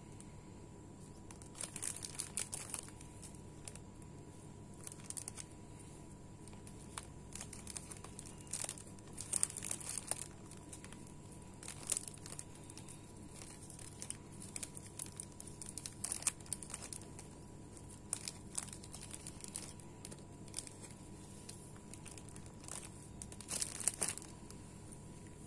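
Clear cellophane bags crinkling in irregular bursts as their necks are gathered, twisted and tied shut with curling ribbon.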